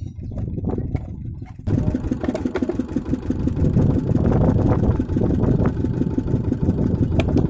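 An engine running steadily with a rapid low pulse. It suddenly becomes louder and closer about a second and a half in.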